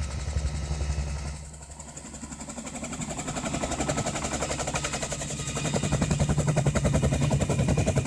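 Bell 47 helicopter coming in to land, its two-blade main rotor beating in a fast, even rhythm over the engine, growing louder as it approaches and descends.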